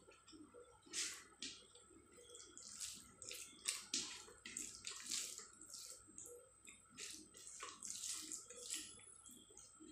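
Fingers mixing rice with curry on a plate: irregular wet squishing and small crackles.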